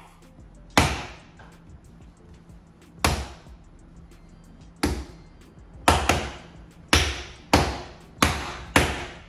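A series of sharp hand slaps, about nine, sparse at first and then coming faster toward the end, over faint background music.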